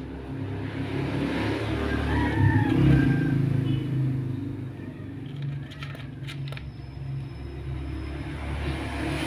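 A passing vehicle's low rumble swells to a peak about three seconds in and then fades, with a rooster crowing briefly around the loudest point.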